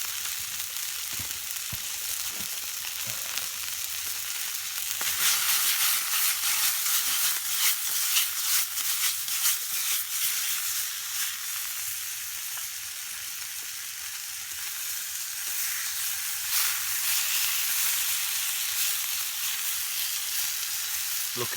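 Chicken fillets sizzling in a wok over hot campfire ashes, a steady frying hiss. From about five to ten seconds in it gets louder, with a run of sharp crackles and spits, then settles back to a steady sizzle.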